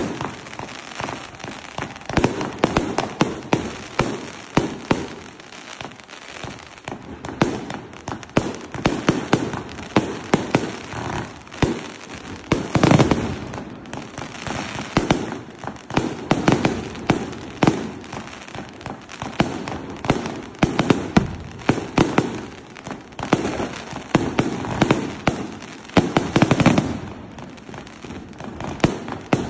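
Fireworks going off: a dense run of sharp pops and crackles, with louder bursts about thirteen seconds in and again near the end.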